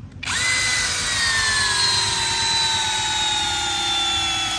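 Akuza K2 cordless drill driving a long wood screw into wood: the motor starts with a whine about a quarter second in and runs steadily, its pitch slowly falling as the screw goes deeper and loads the motor.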